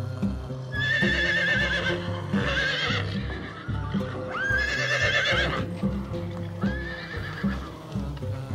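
Horses neighing four times, each whinny about a second long with a quavering pitch, over background music with a steady beat.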